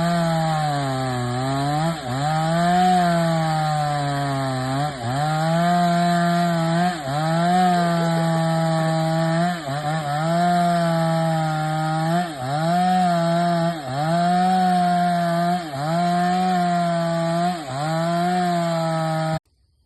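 MS588 chainsaw ripping lengthwise through a durian trunk, running at high revs. Its note sags briefly about every second and a half as the chain bites under load, then picks back up. The sound cuts off suddenly near the end.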